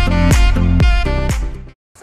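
Music with a steady beat and a bass line, about two beats a second, cutting off abruptly near the end.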